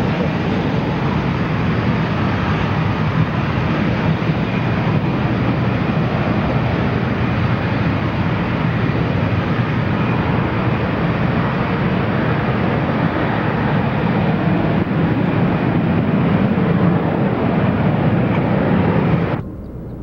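Several Canadair CT-114 Tutor jets with their turbojet engines running as they taxi in line, a steady, loud engine rush that cuts off sharply near the end.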